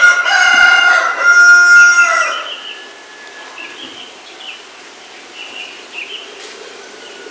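A bird's loud, drawn-out call lasting about two and a half seconds, then faint chirping.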